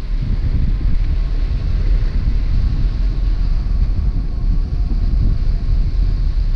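Wind buffeting the microphone of a wing-mounted camera on a hang glider in flight at about 20 mph airspeed: a loud, steady, fluttering low rumble.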